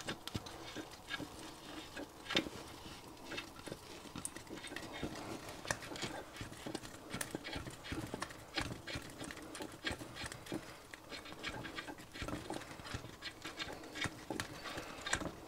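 Faint, irregular clicking and knocking of a steam engine's oil pump drive being turned by hand. The drive is stiff to turn as the pump starts to pick up thick oil.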